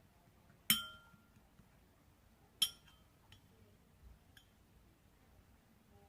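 Two sharp clinks of hard objects knocking together, each with a short ring, about two seconds apart, followed by a few fainter taps.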